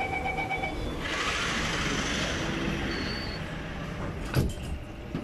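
Door-closing sequence on a Kawasaki-Sifang C151B MRT train and its platform screen doors. A steady warning tone stops about half a second in. Then a rush of noise lasts a couple of seconds as the doors slide shut, and a single sharp knock comes near the end.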